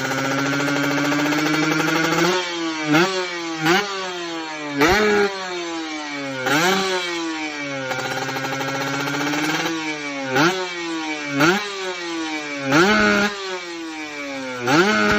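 Two-stroke motorcycle engine with a PWK carburettor reamed to 37.5 mm, being blipped on the throttle. It holds a steady mid rev, then makes about nine quick sharp revs, each falling back in a long dropping whine, with another steady stretch midway. It picks up without the stuttering 'ngorok' of a badly set carburettor.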